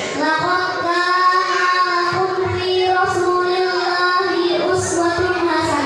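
A young girl singing a slow melodic line into a handheld microphone, holding long notes and sliding between them.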